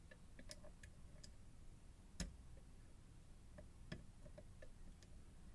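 Faint, scattered small metallic clicks and ticks of a lock pick working the sidebar pins inside an ASSA Twin Combi lock, with one sharper click about two seconds in, as a side pin is lifted and turned.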